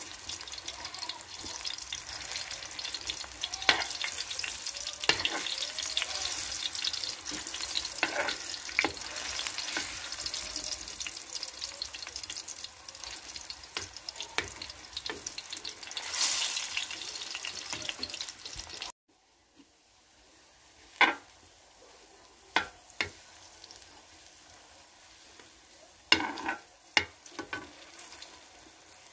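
Banana halves sizzling in hot oil in a wok, with sharp clicks and scrapes of a metal spatula against the pan. About 19 seconds in the sound cuts to a much quieter stretch where the sizzle is faint and a few spatula clicks stand out.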